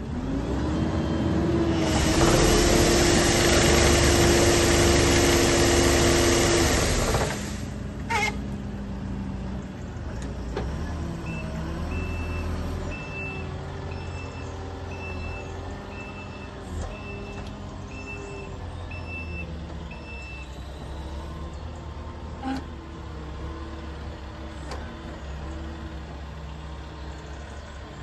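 Hydraulic trunk-shaker head on a telehandler boom shaking an olive tree: a loud rattling din with a steady hum that rises as it starts, cutting off suddenly about seven seconds in. The telehandler's engine then runs on more quietly, and a reversing alarm beeps about once a second for roughly ten seconds in the middle.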